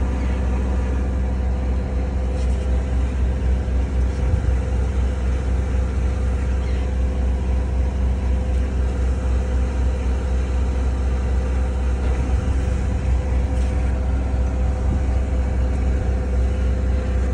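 Boat engine running steadily with an even, low hum and no change in speed.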